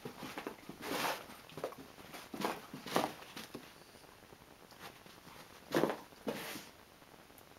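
Siberian husky's paws pattering and scuffing on carpet as it pounces after a laser dot, in irregular bursts with a few louder ones.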